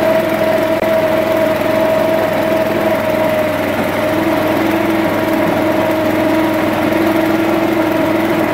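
Small gasoline engine of a walk-behind trencher running steadily at a constant speed, loud and close.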